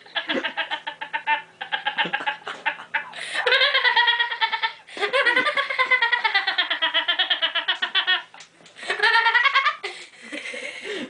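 A person laughing in high-pitched fits of giggling, in several long bursts with short breaks between, quieter near the end.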